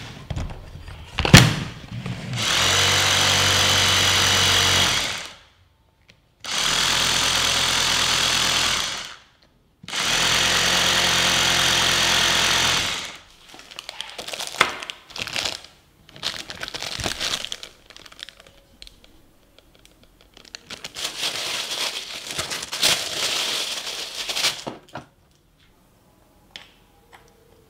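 Bosch GBH 24VRE cordless rotary hammer drill test-run three times, about three seconds each with short pauses between, on its battery pack rebuilt with lithium 18650 cells. After that come clicks and rustling from handling parts on the bench.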